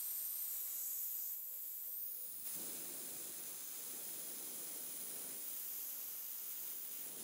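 Vacuum fluid extractor drawing old diesel, with water and sediment from the bottom, out of the fuel filter housing through its hose: a faint steady hiss that grows fuller about two and a half seconds in.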